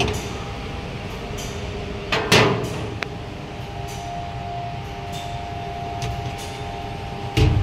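Dip soldering machine running with a steady low hum and rumble. About two seconds in comes a loud, short rushing noise, then a sharp click a moment later, after which a faint steady whine joins the hum; a thump comes near the end.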